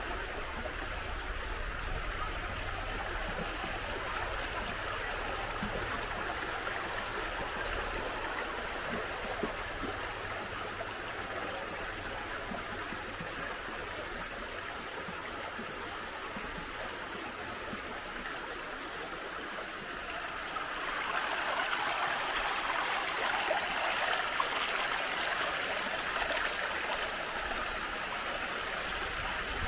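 Water of a small natural waterfall rushing and splashing over rocks, a steady hiss that grows louder about twenty seconds in.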